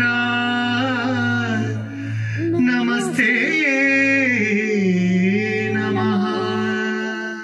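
Devotional song: a male voice singing long, slow, ornamented notes over a steady low drone that fades out near the end.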